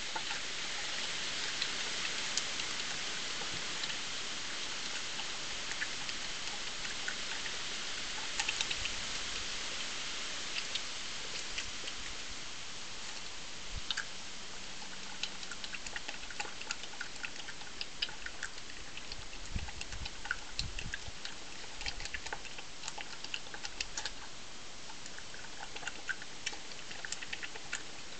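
European badger eating, with irregular small crunches and clicks of chewing over a steady hiss.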